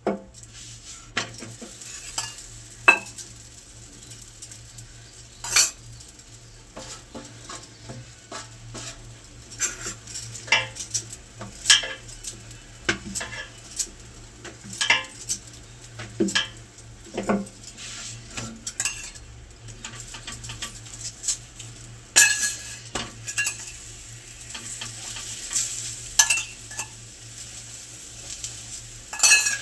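Kitchen cooking sounds: metal utensils clinking and knocking against pots and pans at irregular moments, with food sizzling in a pan.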